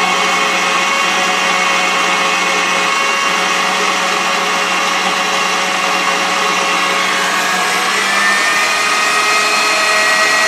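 KitchenAid stand mixer running empty with no load, its motor and gearbox giving a steady multi-tone whine at high speed. About eight seconds in the pitch steps up as it is turned up to top speed.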